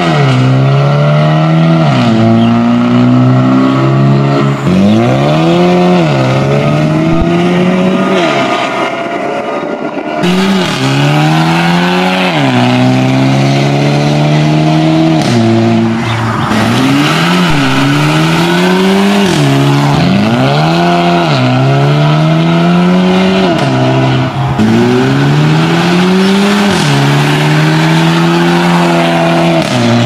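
A Mercedes-Benz A250 (W177) turbocharged 2.0-litre four-cylinder engine through a valved Fi Exhaust catback with catless downpipes, accelerating hard through the gears. The exhaust note climbs steadily in pitch, drops sharply at each upshift and climbs again, about ten times over.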